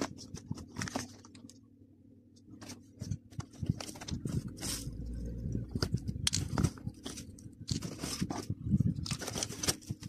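Bubble-wrap and cardboard packaging crinkling and rustling as a handheld vacuum cleaner is lifted out of its box by hand. It makes irregular crackles, with a short pause about two seconds in.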